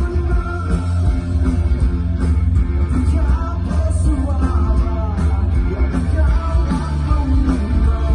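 Rock band playing live through a concert sound system, with electric guitar, heavy bass and a singer's voice, heard from within the crowd.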